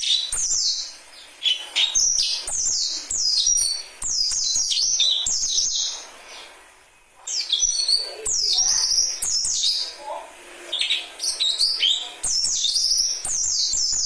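Bird song: rapid bursts of high, mostly falling chirps and whistles that tumble quickly one after another, with brief lulls around the middle.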